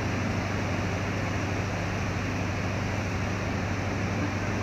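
Steady rush of churning water at a river lock gate, with a low, steady engine hum underneath.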